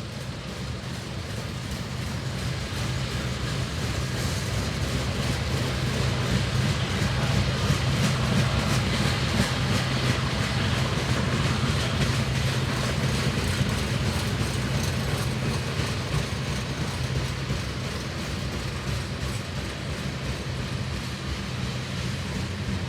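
Long freight train rolling past: continuous rumble and clatter of wheels on the rails over a steady low drone, swelling to its loudest around eight seconds in and easing a little afterwards.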